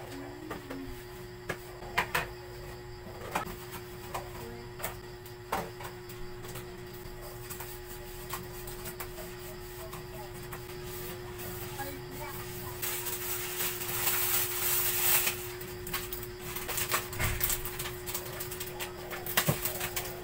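Plastic food containers being handled and set down on a table: scattered light clacks and knocks. About two-thirds of the way through come a couple of seconds of plastic grocery bags rustling, over a steady low hum.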